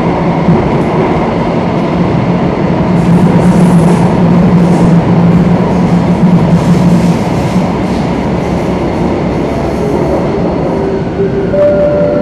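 Singapore MRT train running, heard from inside the carriage: a steady low rumble and drone of wheels on rail. Thin whining tones come in near the end.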